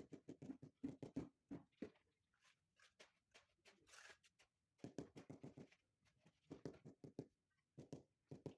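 Rubber mallet tapping a marble tile down into its mortar bed: quick runs of short, dull taps, about four or five a second, separated by pauses. There is a brief trowel scrape in the middle.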